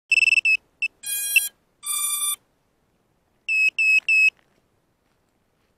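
Electronic status beeps from a mini HD camera's built-in beeper: a few short high beeps, two longer tones at lower pitches, then three short high beeps in quick succession, as the camera is switched on and starts recording.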